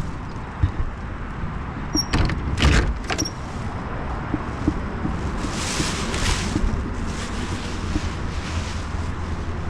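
Steady low rumble of a running vehicle, with a few sharp knocks about two to three seconds in and a brief hiss around the middle.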